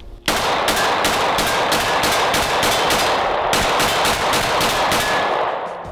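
Rapid 9mm pistol fire: a quick string of shots, about three a second, that runs together into one loud, continuous stretch of sound and fades out near the end.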